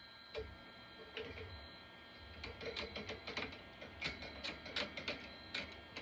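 Hand tools clicking and clinking against metal bolts and parts: a few separate clicks at first, then a quick, irregular run of them from about two seconds in, over a steady hum.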